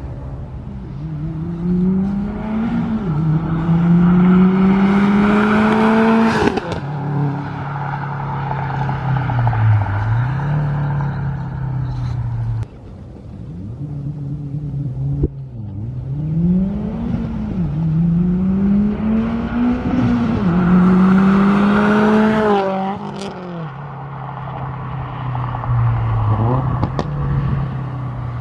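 Subaru WRX STI's turbocharged 2.5-litre flat-four, through aftermarket equal-length headers and exhaust, revving hard in two pulls. Each pull climbs steeply in pitch and then cuts off suddenly with a sharp crack, about six seconds in and again near twenty-three seconds. Between the pulls the engine holds a steady raised rev.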